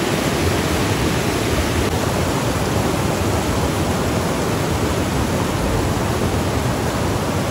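Fast mountain river rushing over boulders in white-water rapids: a loud, steady noise of churning water.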